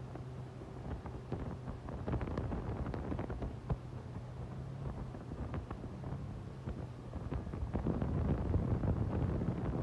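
Wind buffeting the microphone over the low, steady drone of a towing motorboat's engine; the engine drone fades about seven seconds in while the wind noise grows louder near the end.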